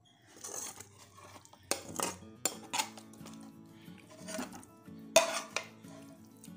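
A metal knife scraping and clanking against a frying pan as chicken pieces are pushed off it into a dish, with several sharp clatters around two seconds in, again just after and near five seconds in. Soft background music plays under it.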